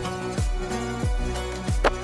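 Background pop song with a steady beat: a deep kick drum that drops in pitch about every two-thirds of a second, with a sharp hit near the end.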